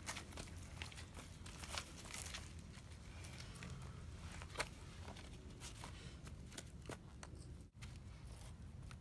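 Dry fallen leaves crunching and rustling under shuffling feet, a run of scattered light crackles with one sharper tick about halfway through.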